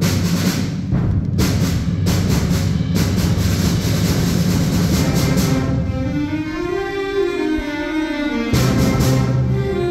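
Middle school concert band playing: repeated drum and cymbal hits over low brass for the first half, then a melody that rises and falls over low held notes, with another short burst of crashes near the end.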